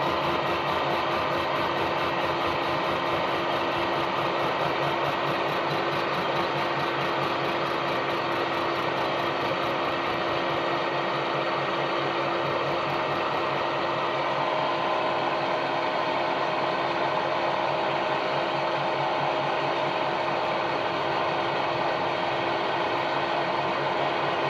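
Milling machine running and cutting the teeth of a ratchet blank held in a dividing head: a steady machine hum with a few fixed tones and a fast, even pulsing.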